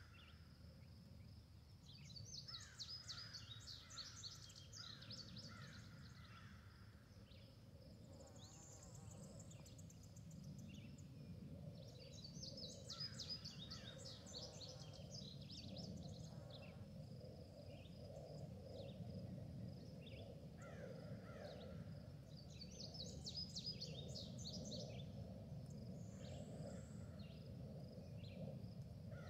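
Faint outdoor ambience of birds calling: three bouts of rapid high chirping trills, over a thin steady high tone and a low rumble.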